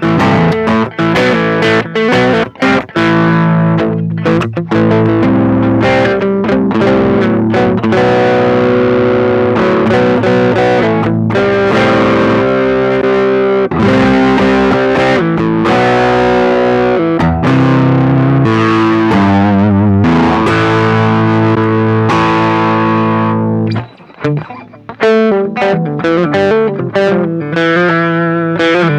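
Electric guitar played through a Ross compressor and overdrive pedals, with a distorted tone: short choppy picked notes at first, then sustained chords and lines, with a brief break about 24 seconds in before the playing resumes.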